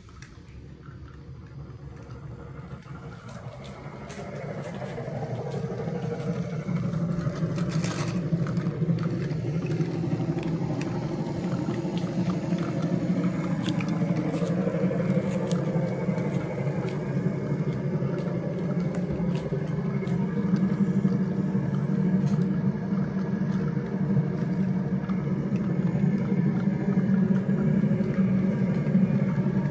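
Battery-powered toy train engine running along a wooden track, a steady motor whir with wheels rolling, getting louder over the first few seconds and then holding steady, with occasional sharp clicks.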